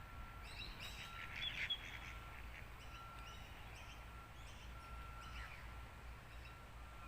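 Birds calling by a lake: a run of short calls over the first five seconds or so, loudest about a second and a half in, likely the approaching ducks. Under it, a faint steady high note repeats in short dashes.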